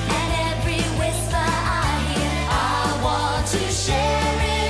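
Pop song with singing over a steady, repeating bass line and beat.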